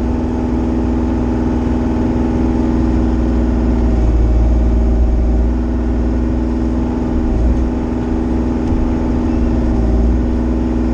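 Diesel engine of a Bobcat compact machine running steadily with a constant low hum.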